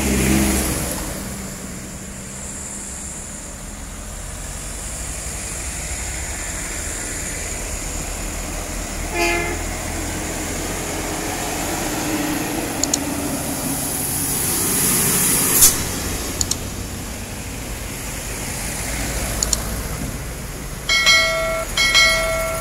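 Heavy trucks passing on a climbing road, with engine and tyre noise rising and falling. A short horn toot sounds about nine seconds in and two horn blasts near the end.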